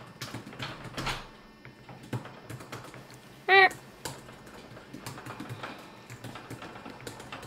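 Laptop keyboard being typed on, a scatter of light irregular key clicks, with one short, loud parrot call about three and a half seconds in.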